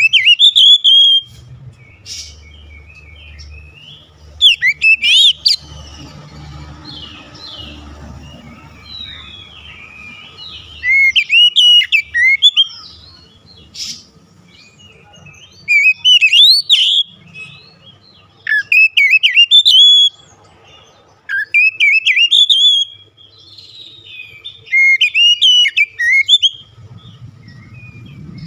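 Oriental magpie-robin singing: loud, varied whistled song phrases of one to two seconds each, about seven of them, with short pauses between.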